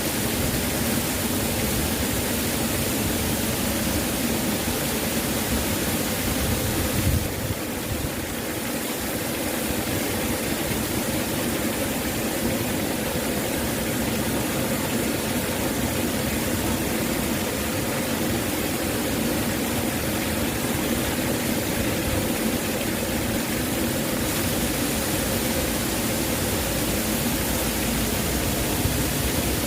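Waterfall: a steady, even rush of falling water, with a short dip in level about seven seconds in.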